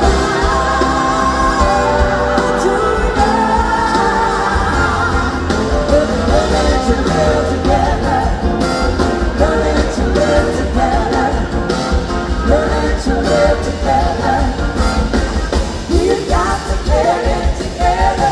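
Live rock band playing: a woman's lead vocal over electric guitar, drums and keyboards. Held chords come first, and the singing comes in strongly about five seconds in.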